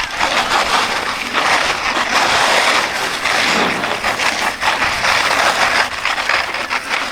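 Edges scraping and hissing over hard-packed snow during a fast downhill run. The rushing scrape swells and eases as the turns are carved.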